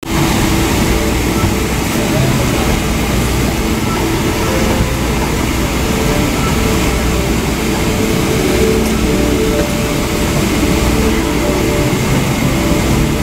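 Steady cabin noise inside a Boeing 777-300ER on the ground: an even rush of air over a low rumble.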